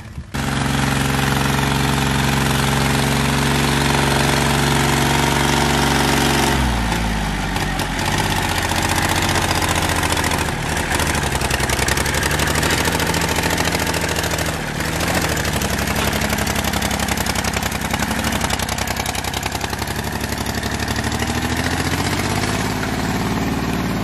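Kubota L2201 DT compact tractor's diesel engine running while it pulls a disc plow through soil. The engine note holds steady at first, then about six and a half seconds in it drops and wavers for the rest of the time.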